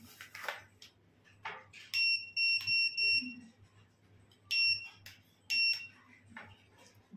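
Electronic beeps from a hydrafacial beauty machine: a quick run of about four short, high beeps, then two single beeps about a second apart.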